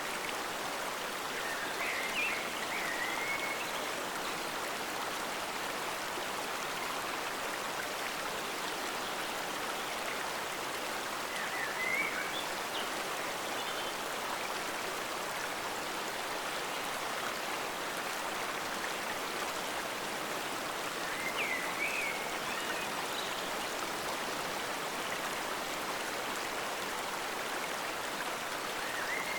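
Stream water flowing steadily in a forest, with short high chirps four times, about every nine to ten seconds.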